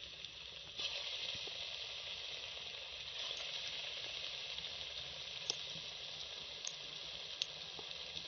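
Besan-battered chicken pieces deep-frying in hot ghee in a steel pot, a steady sizzling hiss. It grows louder about a second in as more pieces go into the oil, with a few small pops.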